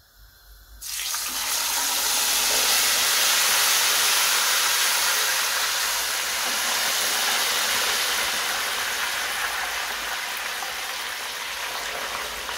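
Potato chips deep-frying in hot oil in a frying pan: a loud sizzle that starts suddenly about a second in and slowly dies down.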